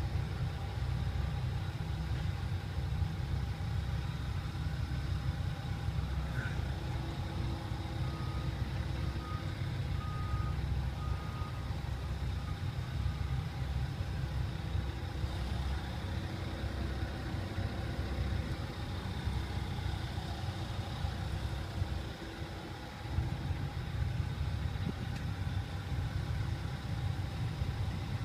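Heavy diesel haul truck engine idling with a steady low rumble, heard from beneath the truck. About eight seconds in comes a short run of five evenly spaced high beeps.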